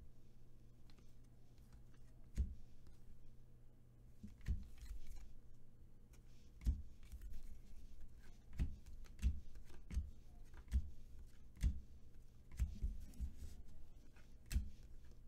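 Select football trading cards being leafed through by hand and laid down on a table: a string of soft taps and card slides, roughly one a second, over a steady low hum.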